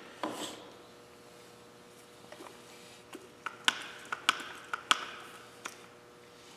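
Hand grease gun being pumped into a grease zerk: a series of sharp metallic clicks, roughly one every half second, starting about halfway through.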